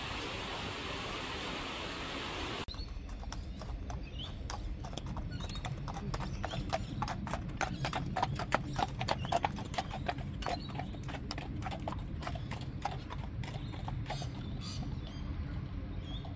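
Several horses walking on an asphalt path, their hooves clip-clopping in an uneven overlapping rhythm that grows louder as they pass close by and then thins out as they move off. A steady hiss comes before the hoofbeats for the first two or three seconds.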